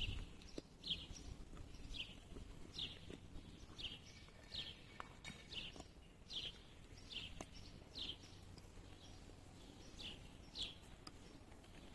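A bird calling over and over, a short falling chirp about once a second, faint.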